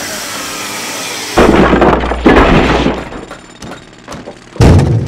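Logo-animation sound effects: a long whoosh, then two heavy low hits about a second apart, a scatter of small sharp clicks, and a final loud hit near the end.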